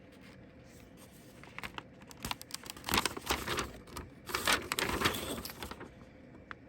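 Packaging crinkling as it is handled and unfolded, in two main bursts of crackling.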